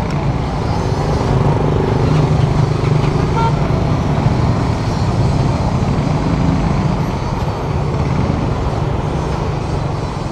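Congested street traffic: motorbike and car engines running and idling close by, a steady low hum under general street noise. A short beep sounds about three and a half seconds in.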